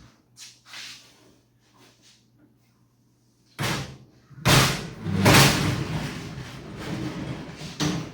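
A heavy rolling tool box on new 4-inch double ball bearing casters being moved: a thud about three and a half seconds in, then a loud rumbling rattle as it rolls.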